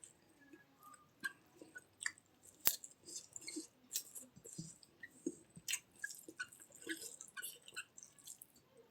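A person chewing food with wet mouth clicks and smacks, irregular and several a second.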